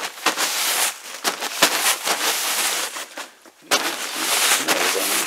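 Thin 4-mil plastic greenhouse sheeting crackling and crinkling in two long stretches, with a short lull about three and a half seconds in.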